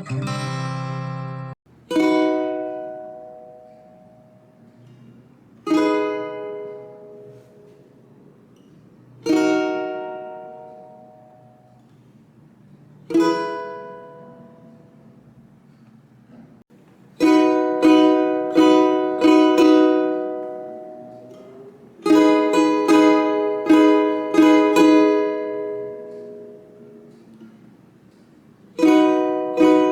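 Ukulele strummed: a fuller strum cuts off about a second and a half in. Then four single strummed chords ring out one at a time, each left to fade for a few seconds, before rhythmic strumming patterns of quick repeated strokes start about halfway through.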